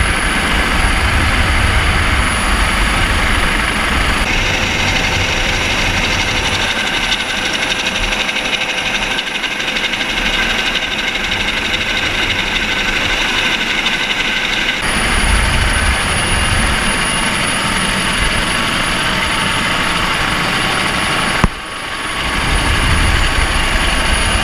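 Helicopter turbine engine and rotor noise, loud and steady, with a high whine over a deep rumble; the sound shifts abruptly three times.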